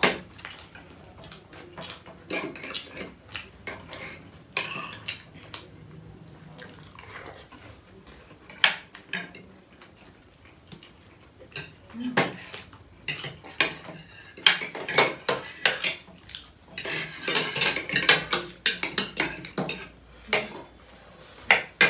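Metal forks and spoons clinking and scraping on ceramic plates and bowls as two people eat momos quickly. The sharp, irregular clicks are sparse at first and come thicker and louder over the second half.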